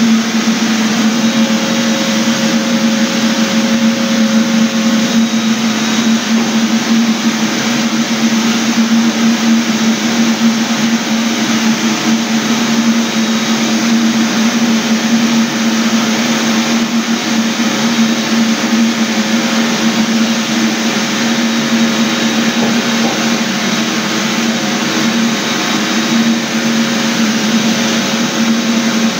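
Electric floor sanding machine running steadily: a loud, even motor whir with a strong constant hum that does not change.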